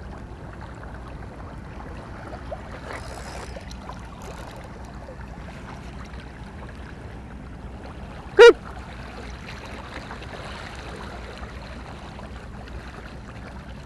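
Steady low ambience of harbour water at the water's edge. About eight seconds in, one short, sharp pitched squeak cuts through, much louder than the background.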